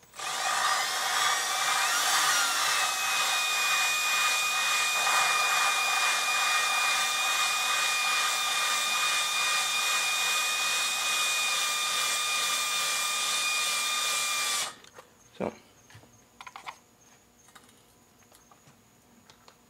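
Electric drill spinning an intake/exhaust valve against its seat in a Mazda BP cylinder head with coarse abrasive lapping compound: a steady motor whine over a gritty grinding hiss. The grittiness dying away as the seat is cut smooth shows the lapping is nearly done. The drill speeds up about two seconds in and stops abruptly near the end.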